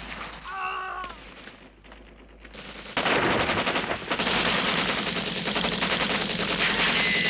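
Rapid, sustained machine-gun fire in a war-film soundtrack, starting abruptly about three seconds in after a brief lull that follows an explosion's fading noise.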